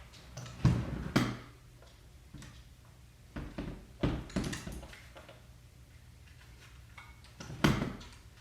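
Sharp clicks and knocks of hard camera parts being handled as a Vivitar 283 flash is fitted onto a Mamiya Universal camera. The knocks come in a handful, loudest about half a second and a second in and again near the end.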